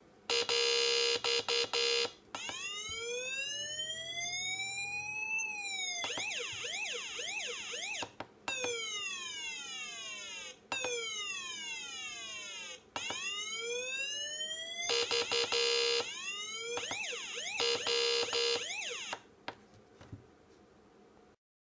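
Electronic police siren from a PIC16F628A microcontroller circuit, played through a speaker as it switches between its tones. It opens with a buzzy horn blast in short pulses, then gives a slow rising wail, quick up-and-down yelps and a run of falling and rising sweeps. The horn blasts come back with rising sweeps near the end.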